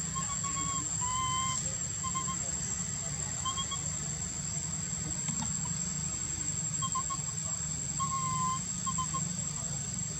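A baby monkey giving short, high-pitched squeaking calls, a few notes at a time with pauses between, over a steady high-pitched hum and a low rumble.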